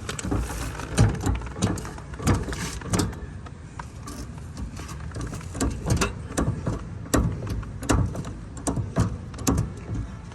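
Irregular clicks and metallic knocks of a hose fitting and dies being handled and set into a portable hydraulic crimper, over a steady low rumble.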